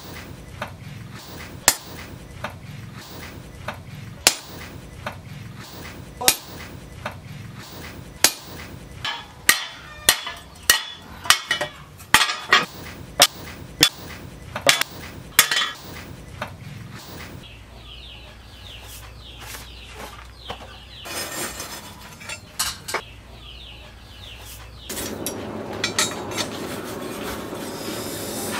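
Hammer blows ringing on a steel tractor disc-plough blade clamped in a vise. The strikes are spaced a second or two apart at first, then come in a quicker run, followed by quieter scraping. Near the end a steady rushing noise sets in.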